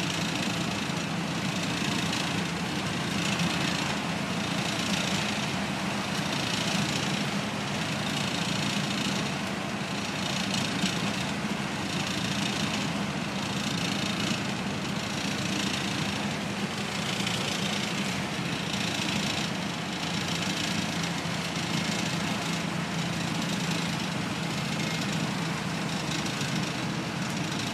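Routemaster double-decker bus's diesel engine running steadily at road speed, a constant low drone with road and wind noise that swells and fades about once a second, heard from inside the upper deck.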